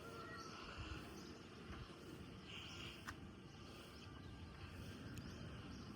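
Faint rural ambience: a steady low rumble with scattered short bird chirps and a couple of sharp clicks.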